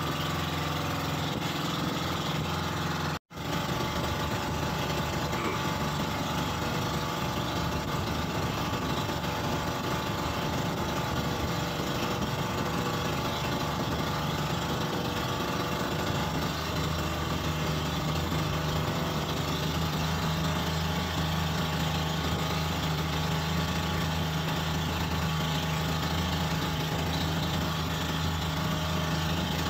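Engine of a motorized outrigger boat (bangka) running steadily under way, with an even rush over it. The sound breaks off for an instant about three seconds in.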